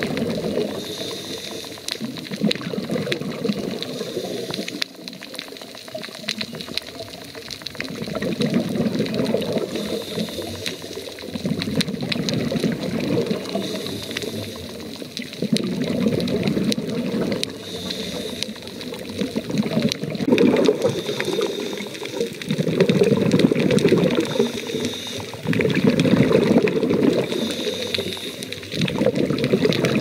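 Scuba diver's exhaled air bubbling out of the regulator underwater, in bursts lasting one to three seconds that come every few seconds with breathing.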